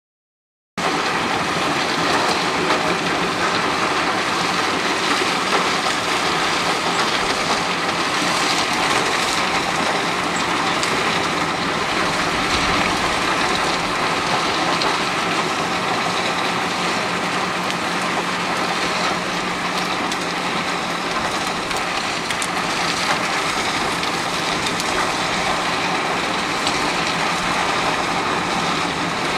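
Albach Diamant 2000 mobile wood chipper running under load. A heavy engine drone sits under a dense, steady rush of chipping noise. It cuts in suddenly just under a second in and then holds even.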